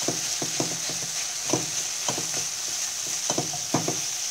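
Silicone spatula stirring and scraping a thick apple-and-milk barfi mixture around a nonstick pan, giving irregular soft knocks, over a steady sizzling hiss as the mixture is dry-fried with its milk cooked off.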